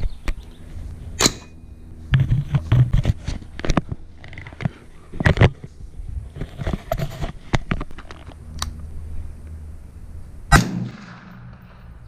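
Suppressed 5.56 rifle shots through a Lahar 30 suppressor, several sharp reports a few seconds apart with smaller knocks between them. The last shot is the loudest, followed by a fading echo.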